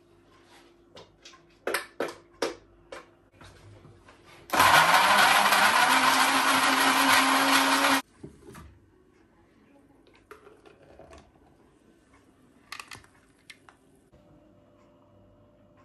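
Countertop jug blender switched on, its motor spinning up with a rising whine and then running loud and steady for about three and a half seconds before cutting off sharply, blending a protein shake. A few sharp taps come before it.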